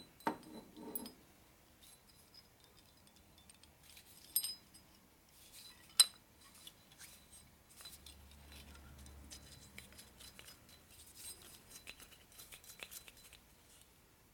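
Small metal parts of a nitrous oxide transfer pump clicking and clinking as its spring and plunger are handled and fitted back in, with a sharp click about six seconds in and a lighter one just before it.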